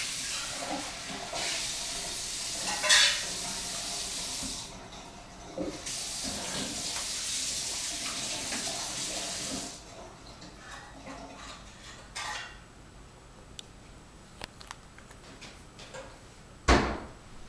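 Water running from a tap, with a few clinks of dishes, shut off about ten seconds in. After that come a few light clicks and one sharp knock near the end.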